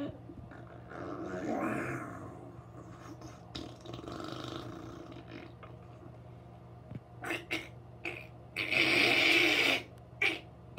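Mock straining noises made by a person's voice, as if pushing on the toilet: a drawn-out strain about a second in, a few short ones around seven to eight seconds, and a loud breathy push lasting about a second near the end, over a steady low hum.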